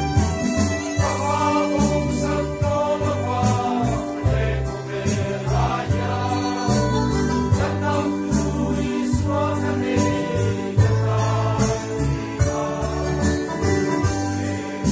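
A men's choir singing a song together in the Mizo language, many voices in a continuous sung line that keeps changing pitch.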